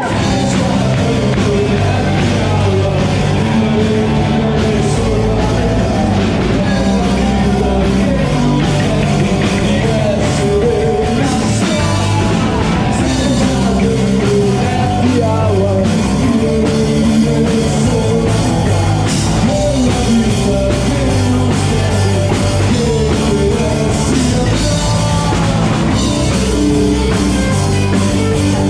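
Live band playing a rock song with a drum kit, loud and steady.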